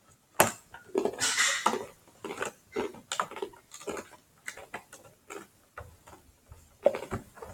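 Plastic and cardboard toy packaging being handled: an irregular run of clicks, taps and rustles, with a sharp click about half a second in and a longer rustle around a second in.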